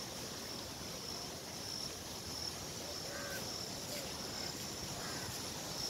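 Countryside ambience: a steady high-pitched insect chirring over a hiss of background noise, with a couple of faint short calls about three seconds in.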